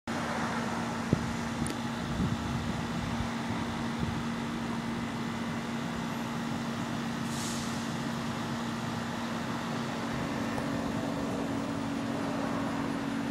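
Steady outdoor urban background noise with a steady low hum, and a sharp click about a second in.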